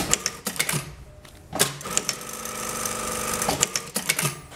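Electronic direct-drive industrial straight-stitch sewing machine sewing denim in one steady run of about two seconds. A cluster of clicks comes at the start and again near the end, the machine's automatic thread trimmer and presser-foot lift cycling between seams.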